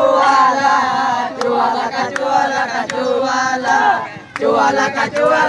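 A group of students chanting and shouting together, many voices at once, breaking off briefly about four seconds in before starting up again.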